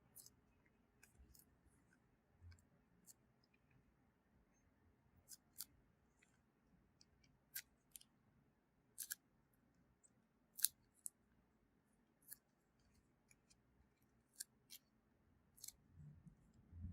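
Slime being handled, giving irregular small sharp clicks and pops, some twenty of them, with the loudest about two-thirds of the way through.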